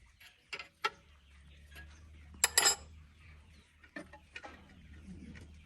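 Metal tools and parts clinking and knocking as they are handled in a repair, with a loud double clink about halfway through, over a low steady hum.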